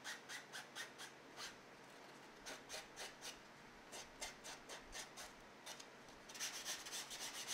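Foam sanding block rubbed in short back-and-forth strokes along the edges of a 3D-printed plastic part, deburring them. The strokes thin out about two seconds in and come in a quick run near the end.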